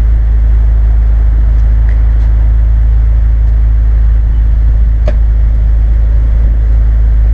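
Exhaust of a 2016 Mazda 3 GT's 2.5-litre four-cylinder through twin Spintech Super Pro Street 9000 mufflers, running with a loud, steady low drone.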